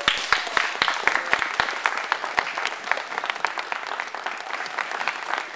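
Crowd of spectators applauding, many hands clapping fast and close together, loudest just at the start and easing a little later on.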